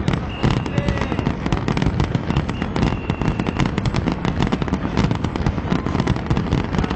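Fireworks display going off in a dense, continuous barrage of rapid bangs and crackling, with a couple of brief whistles.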